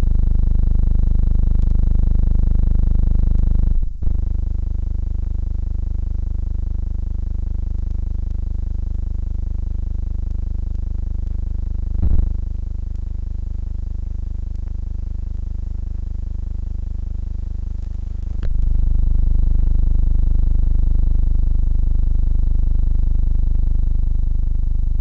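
Steady low electrical hum with evenly spaced overtones and faint hiss, and no recorded sound from the scene. Its tone shifts at sharp clicks about four, twelve and eighteen seconds in.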